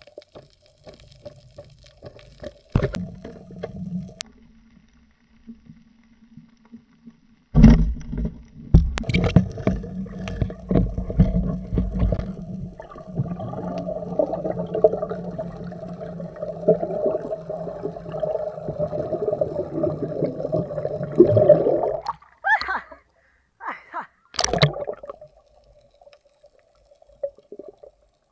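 Muffled underwater sound through a camera's waterproof housing: a few sharp knocks, then from about eight seconds in a long stretch of churning, gurgling water noise that stops abruptly about 22 seconds in, followed by a couple more knocks.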